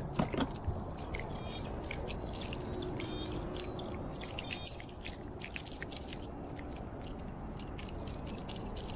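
Scattered light clicks and ticks of fishing pliers working a hook out of a small hand-held tailor, over a low steady rumble.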